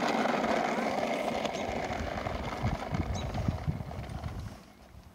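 Battery-operated toy garbage truck playing its electronic engine sound effect, a loud rumbling hiss that fades out after about four and a half seconds.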